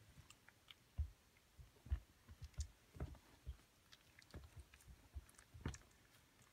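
Faint, irregular soft thumps and small clicks of two-week-old Border Collie puppies scrambling against each other and mouthing at each other's faces on a soft blanket.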